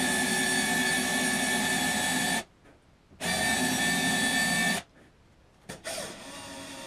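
Power tool running steadily with a high whine, cutting off abruptly about two and a half seconds in, starting again, and cutting off again near five seconds; a quieter mechanical sound follows near the end.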